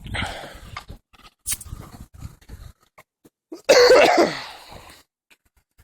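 A person coughs once, loudly, about two-thirds of the way through. Before that come light knocks and rustling.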